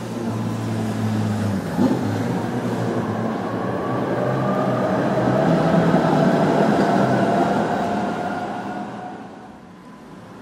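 A tram passing along the street below: its rumble builds to a peak about six seconds in, with a faint rising whine, then fades away near the end. A low hum and a single knock come in the first two seconds.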